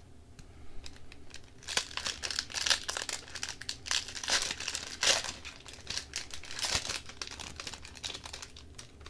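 Plastic hockey card pack wrapper crinkling as it is torn open and pulled apart by hand, in a string of irregular crackles that starts about two seconds in.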